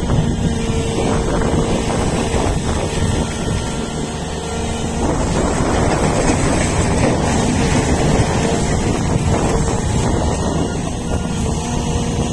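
Volvo EC480DL excavator's 13-litre six-cylinder diesel engine working hard as the bucket digs into a coal pile, with a steady whine over the engine note. Wind is buffeting the microphone.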